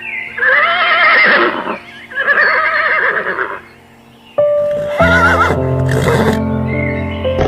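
Horse whinnying twice, each call about a second and a half long with a quavering pitch, over background music that fills the second half after a short lull.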